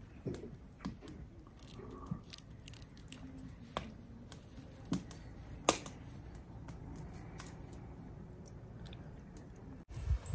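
Fresh herb stems being snapped and leaves picked off by hand: scattered small sharp clicks and crackles at an irregular pace.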